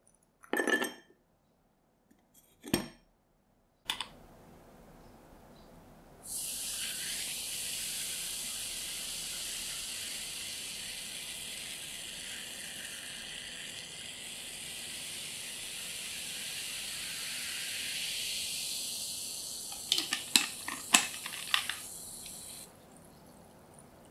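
Carbonated water poured from a plastic bottle over a ball of ice in a tall glass: a long fizzing, hissing pour that starts about six seconds in and cuts off near the end, with several sharp clinks just before it stops. Before the pour, a short pouring sound and a couple of clicks.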